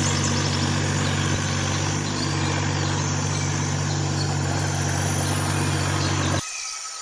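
An engine idling steadily with an even low drone, cutting off abruptly about six and a half seconds in.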